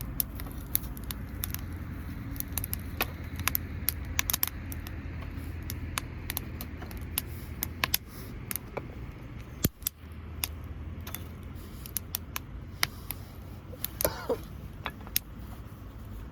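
Wood campfire crackling: irregular sharp pops and snaps over a steady low rumble. A brief wavering tone sounds near the end.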